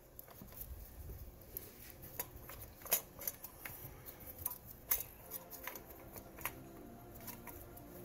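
Scattered light clicks and taps of gloved hands handling coolant hoses and fittings around an engine's thermostat housing during reassembly. Soft background music comes in around the second half.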